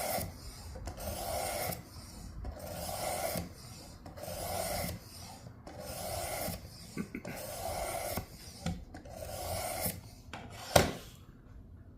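Knife blade being stroked across the abrasive plate of a Work Sharp sharpener: about seven even rasping strokes, each under a second and about one and a half seconds apart, then a single sharp click near the end.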